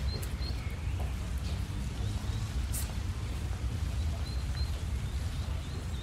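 Outdoor park ambience: a steady low rumble under a light hiss, with small birds chirping high and a sharp click about halfway through. Any voices of the small crowd are faint.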